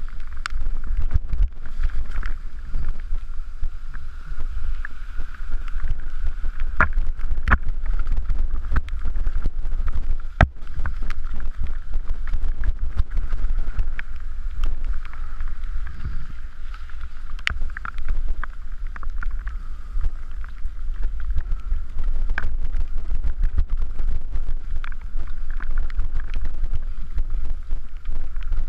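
Mountain bike descending a wet, rocky dirt trail: wind buffeting the camera microphone in a steady low rumble, with frequent sharp knocks and clatter as the bike rattles over rocks and ruts.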